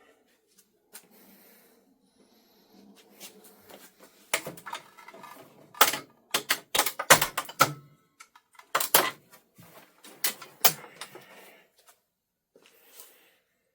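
Irregular clicks, taps and knocks of parts from a disassembled CRT television being handled, coming in quick clattering clusters in the middle of the stretch.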